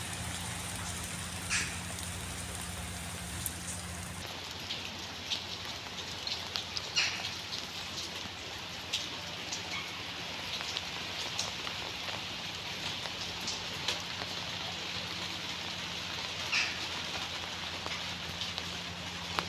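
Steady rain falling, an even hiss dotted with sharper ticks of individual drops striking a surface, a few of them louder.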